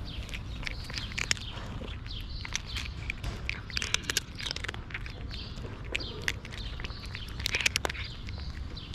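Cat crunching dry kibble: irregular, crisp crunches and clicks as its teeth break the pellets.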